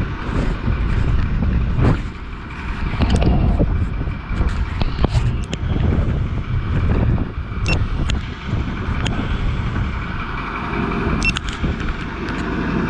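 Strong wind buffeting the microphone of a dropped GoPro action camera: a low, gusting rumble that surges and eases, with scattered sharp clicks and knocks.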